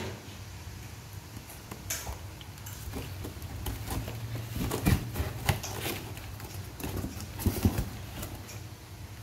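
A cat wrestling with a paper cord inside a cardboard box: irregular scratching, rustling and dull thumps of paws against the cardboard, busiest about halfway through and again near the end.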